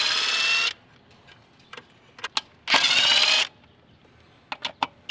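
Cordless power ratchet running in short bursts of about a second each, its motor whining and rising slightly in pitch as it spins the top-mount intercooler bolts loose. A few light clicks and taps come between the bursts.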